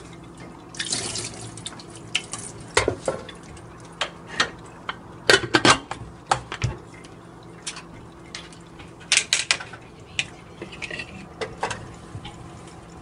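Metal pressure cooker being handled: scattered clanks, clicks and knocks as its lid is fitted and locked on and the cooker is set down on an electric coil burner.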